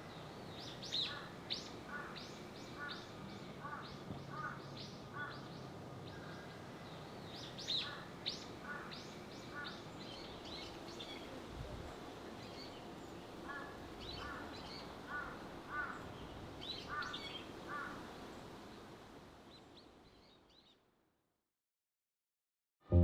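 Several birds chirping and calling in short repeated notes over a steady low background noise, fading out near the end.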